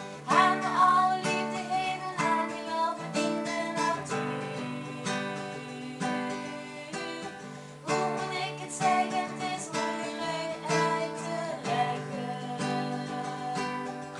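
Nylon-string classical guitar strummed in a steady rhythm, with a girl's voice singing a simple melody over it.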